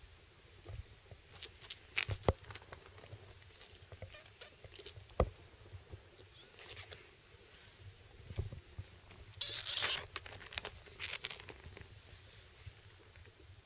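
Rustling of futon bedding and cloth with scattered soft taps and clicks as a kitten plays on it, with a louder burst of rustling about ten seconds in.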